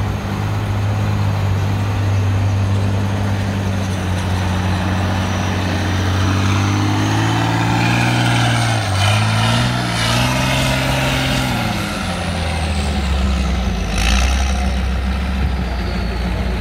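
Trial truck's engine pulling under load as the truck climbs a steep bank, its revs rising and falling twice about midway. Near the end there is one short, sharp sound.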